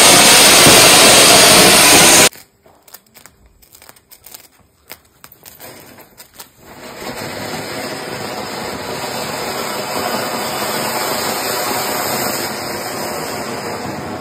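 Ground fountain fireworks (anar) spraying sparks with a loud, steady hiss. The first fountain's hiss cuts off abruptly about two seconds in and gives way to a quieter stretch with scattered clicks. A second fountain starts hissing about six and a half seconds in and runs on.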